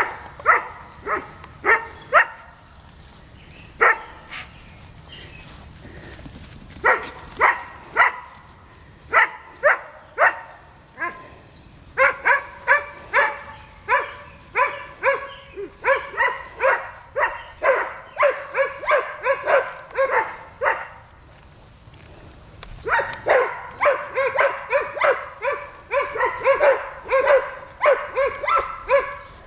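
A dog barking over and over: scattered single barks at first, then fast runs of barks, about three a second, through the middle and again toward the end.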